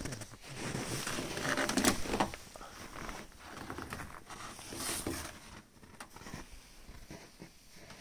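Footsteps crunching in snow, in uneven bursts that are loudest about two seconds in, with some rustle of handling.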